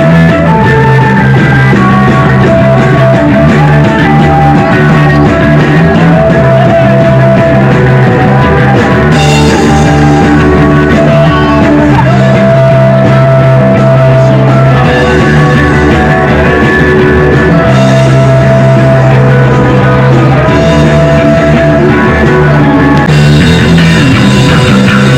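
Rock music from a band: electric guitars and a drum kit playing without a break, with some singing.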